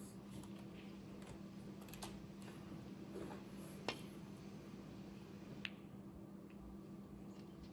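Snooker balls: a sharp click of the cue tip striking the cue ball about four seconds in, then a softer click a little under two seconds later as the cue ball strikes a red. Faint scattered ticks and a low steady hum run underneath.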